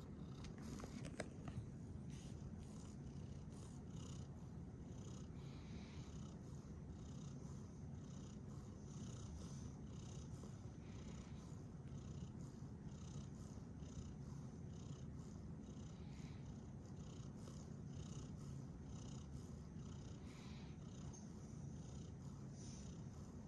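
A Munchkin cat purring: a faint, steady low rumble.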